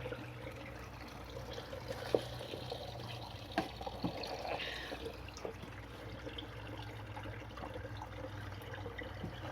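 Steady trickle of running water in an aquaponics system, over a low hum. A few sharp clicks and knocks of PVC pipe and fittings being handled, about two, three and a half, and four seconds in.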